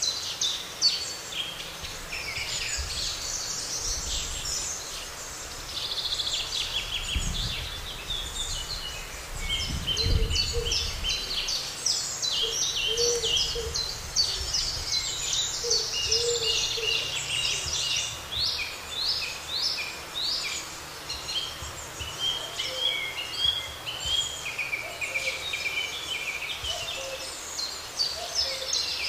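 Many songbirds singing over one another, a continuous chorus of quick chirps and trills. Around the middle, a lower bird call repeats several times, and a couple of low rumbles pass in the first half.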